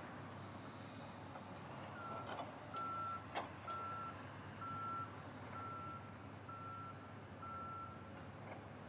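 Reversing alarm on a construction vehicle: seven steady single-pitch beeps, about one a second, beginning about two seconds in. A single sharp click cuts in about a third of the way through.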